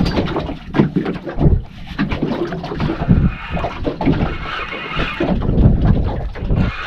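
Wind buffeting the microphone in uneven gusts, with water lapping against a small boat's hull. From about three seconds in, a fishing reel whirs as line is cranked in on a hooked fish.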